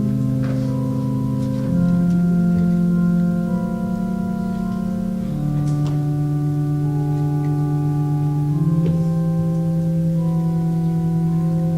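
Church organ playing slow, sustained chords that change every two seconds or so.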